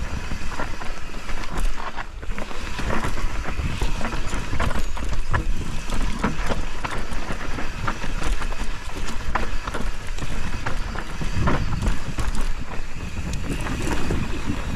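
Mountain bike descending a rocky dirt singletrack: tyres crunching over dirt and stones with constant clattering and rattling of the chain and frame, and wind rumbling on the microphone.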